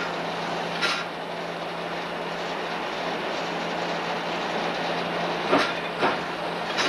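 Train running along the track: a steady rolling rumble with a low hum, broken by a few short, sharp knocks, one about a second in and three near the end.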